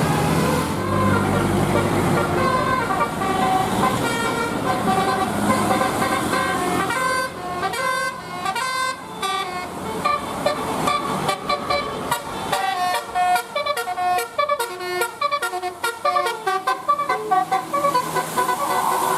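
Bus telolet horn playing a tune of changing notes. About seven seconds in it breaks into rapid short toots with gaps between them.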